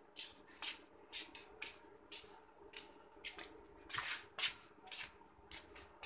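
Hands working a laptop: irregular soft clicks, taps and rustles, about two a second. Under them runs a faint steady electrical hum from the powered-up amplifier rig.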